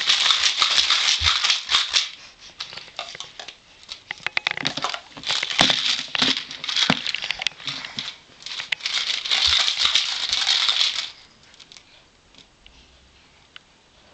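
Crinkling and rattling noise with many sharp clicks, in three bursts, as of something being shaken and crumpled by hand; it stops about eleven seconds in.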